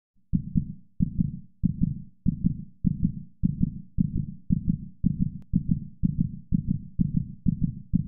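Heartbeat sound effect: steady lub-dub double thumps, starting about a third of a second in, at roughly a beat and a half a second and quickening slightly.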